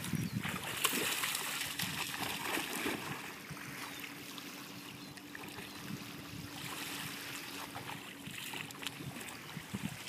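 Small waves lapping and splashing in the shallows at the water's edge, a little louder during the first few seconds.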